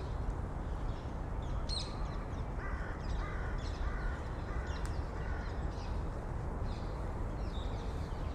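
City park ambience: a steady low rumble of distant city noise under small birds chirping, and a crow cawing about five times in a row a few seconds in.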